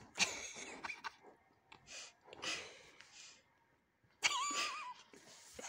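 Breathy bursts of stifled laughter from a person, with a short high wavering voiced squeal about four seconds in.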